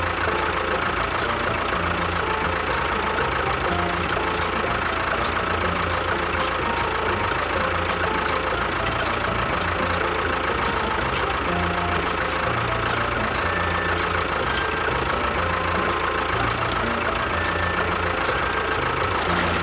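A motor running steadily, with a dense crackle of sharp clicks throughout.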